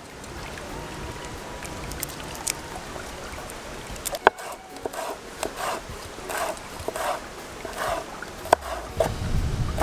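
Garlic being prepared by hand on a wooden chopping board: a few sharp clicks of a chef's knife on the board, and in the second half a run of soft rustling bursts about two a second as the cloves are peeled and sliced.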